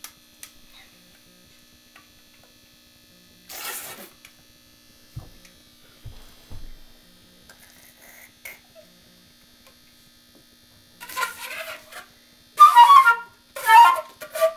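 Concert flute blown by a first-day beginner: three short, breathy notes near the end, more air than tone. Before them come soft knocks and clicks as the flute is handled and fitted together.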